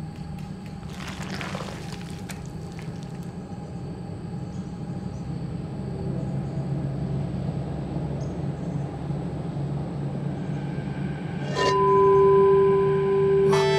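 Low, steady rumbling drone of film sound design, with a brief rustling swish in the first few seconds. Near the end a loud held tone sets in over it.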